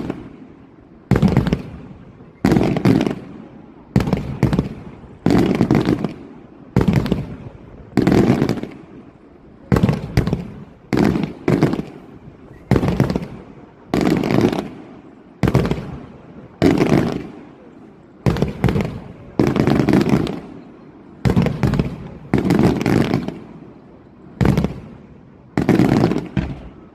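Fireworks going off in a steady succession of loud bangs, about one every second and a half, each followed by a fading rumble.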